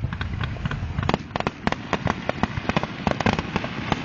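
Fireworks going off: a quick string of sharp cracks and pops, several to the second, coming thicker after about a second.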